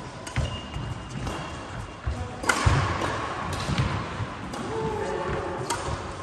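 Badminton rally: rackets strike the shuttlecock in several sharp hits about a second apart, the loudest about two and a half seconds in. Players' shoes squeak briefly on the wooden sports-hall floor.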